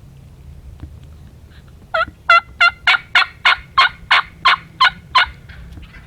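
A turkey yelping: a run of about eleven short, loud yelps, roughly three a second, starting about two seconds in.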